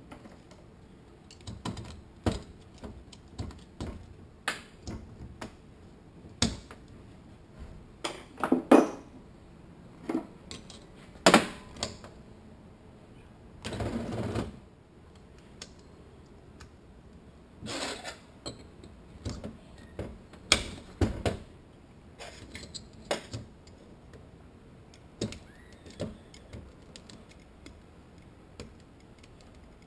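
Steel automatic-transmission parts being hand-assembled: irregular clinks, taps and knocks of metal on metal and on a steel workbench, with a few louder knocks about a third of the way in and a short scraping rasp near the middle.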